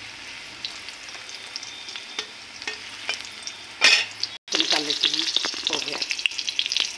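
Potato chunks sizzling and crackling in hot oil in a steel kadai, with a flat metal spatula stirring and scraping them. There is a louder burst about four seconds in and a moment's break, after which the sizzling is louder.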